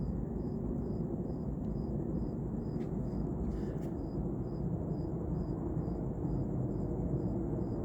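Steady low rumble in the night air, over which an insect chirps in an even, high pulse about twice a second.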